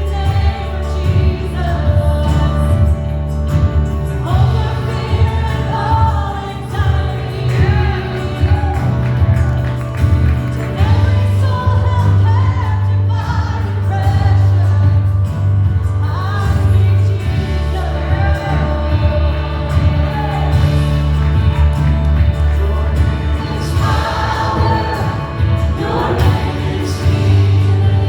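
Live church worship music: a gospel worship song sung by several voices over a band with a strong, sustained bass.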